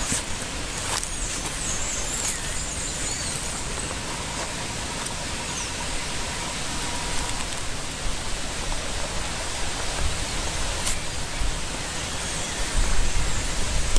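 Steady outdoor background hiss, with a few faint bird chirps in the first few seconds and low rumbling bumps near the end.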